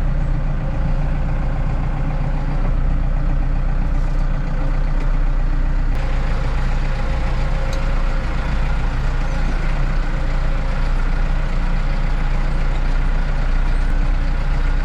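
Tractor's diesel engine running steadily, with a slight change in its sound about six seconds in.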